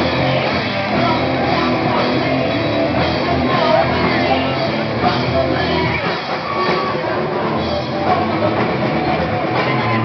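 A rock band playing live, loud and steady: electric guitars, bass guitar and a drum kit together.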